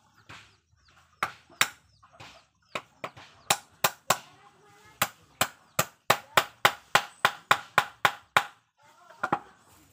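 Hammer striking the teak slats of a small louvre frame, nailing them together: a series of sharp knocks, a few at a time at first, then a quick run of about three blows a second, ending with one last knock near the end.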